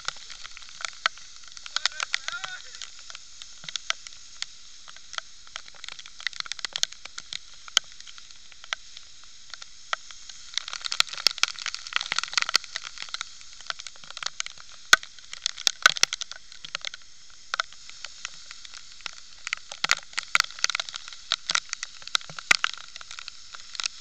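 Waterfall spray pelting a camera held under the falling water: a steady hiss with an irregular crackle of sharp clicks as drops strike the camera, densest around the middle and again near the end.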